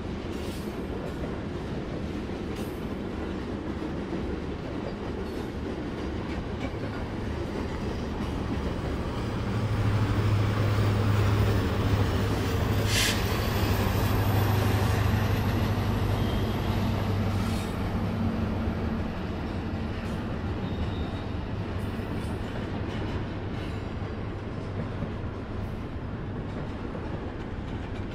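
Freight train cars rolling past on the rails: a steady rumble with faint clicks from the wheels. It grows louder with a low hum from about ten seconds in, and a brief high-pitched metallic squeal comes about halfway through.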